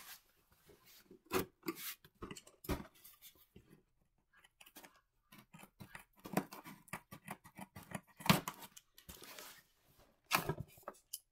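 Scissors snipping and scraping through a cardboard shipping box, in irregular sharp clicks with short bursts of cardboard rustling between them.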